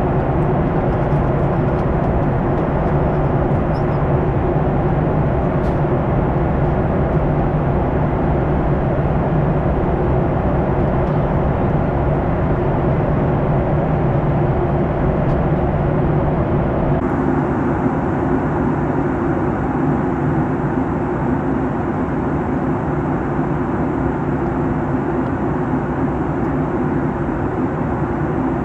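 Steady cabin noise aboard a Boeing 737 MAX 9 airliner: a constant rush of air and engine noise over a low hum. About two-thirds of the way through, the noise shifts suddenly to a slightly thinner tone.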